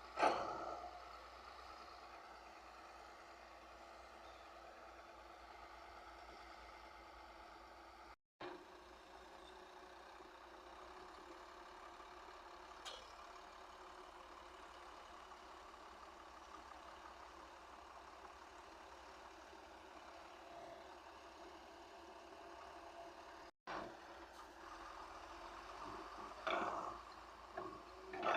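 Caterpillar 320 D2L hydraulic excavator's diesel engine running steadily and faintly, with a sharp knock at the very start and a few louder knocks near the end. The sound cuts out completely for a moment twice.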